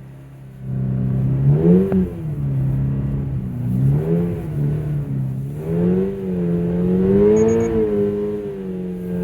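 Toyota GR86's 2.4-litre flat-four engine revving hard while the car drifts in snow. It comes on throttle less than a second in, its pitch climbing and falling three times, then holds a steady drone near the end.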